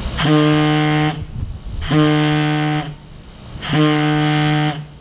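Low-pitched warning horn sounding three long blasts, each about a second long and evenly spaced: the pre-blast warning signal before demolition charges are fired.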